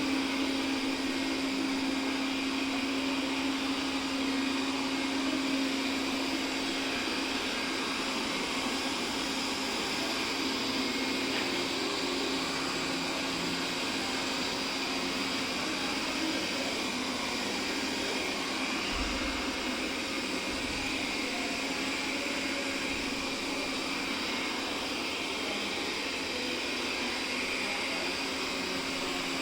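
Robot vacuum cleaner running steadily, its motor and suction giving an even whir with a steady hum. A couple of low bumps come about two-thirds of the way through.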